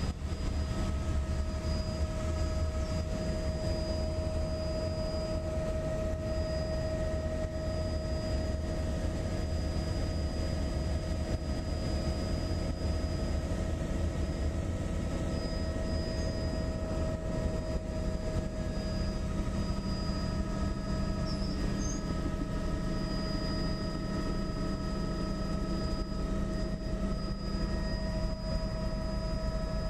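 Helicopter in cruising flight, heard from inside the cabin: a steady low rumble of engine and rotor with several constant whining tones over it.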